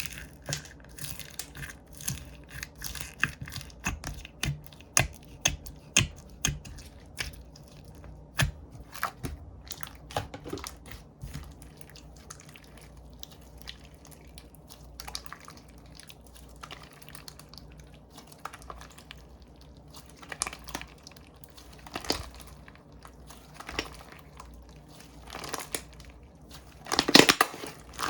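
Slime being squeezed and pressed by hand, giving sharp clicks and crackles at about two a second, thinning out midway, with a louder run of crunchy crackling near the end.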